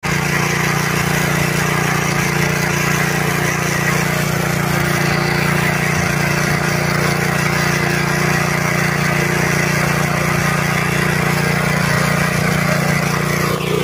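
Honda FQ650 power weeder running steadily under load, its engine driving the rotary tines through tilled soil.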